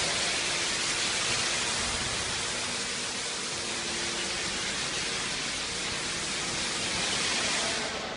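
A steady, loud hiss, strongest in the upper range, that drops away just before the end.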